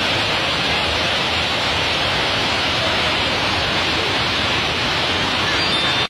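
Fast-flowing water rushing through a stone basin: a steady, even rush that cuts off suddenly near the end.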